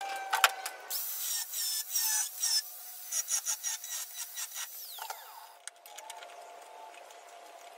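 A power tool cutting away the rusted sheet-metal outer skin of a car's C-pillar: an uneven run of scraping strokes with a high whine, easing off about five and a half seconds in.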